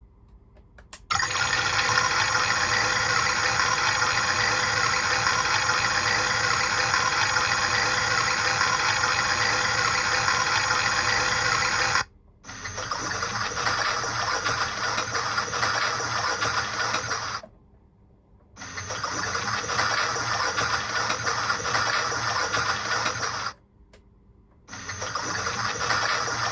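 Theo Klein Miele toy washing machine's electronic sound effects: a steady hiss of simulated water filling starts about a second in and runs for about eleven seconds, then the simulated wash begins as runs of churning noise about five seconds long, separated by short pauses.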